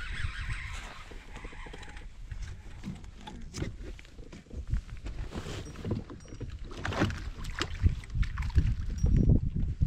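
Wind buffeting the microphone and water lapping against a fishing kayak's hull, an irregular low rumble with scattered knocks and rattles of fishing gear as the rod is reeled and worked. The knocks come thicker in the last few seconds.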